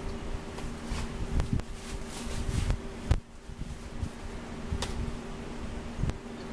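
Chewing and mouth sounds of someone eating a burger, over a steady mechanical hum in the room. A few sharp knocks, the loudest about three seconds in, come from food and a plate being handled.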